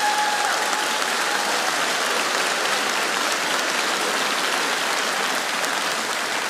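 Studio audience applauding, an even, steady clapping. A held musical note fades out underneath about a second in.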